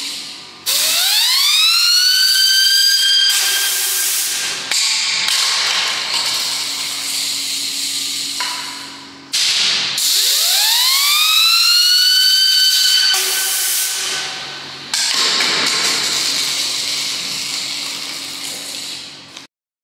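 A 3D-printed spinning UFO toy whistling. Twice its whistle rises sharply in pitch as it spins up, then holds and slowly fades, and the sound cuts off suddenly near the end.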